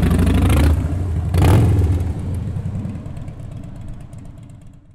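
Motorcycle engine running, with a rev about a second and a half in, then fading out steadily to nothing by the end.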